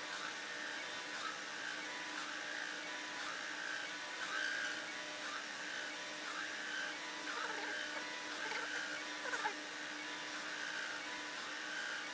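CNC Taig mini lathe making a slow parting cut in brass: a steady machine whine and hum from the running spindle and feed, the whine pulsing about once a second as the cut goes in. A few short squeaks come past the middle.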